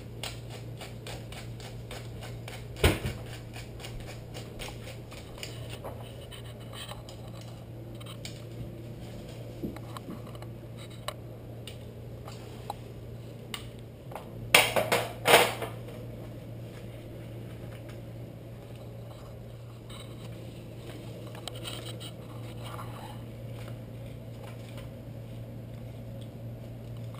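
Hand pepper mill grinding in a quick run of fine clicks, followed by scraping and clatter of food and plates being handled on a kitchen counter. A sharp knock comes about three seconds in and a louder scuffle of two or three quick bursts about halfway through, over a steady low hum.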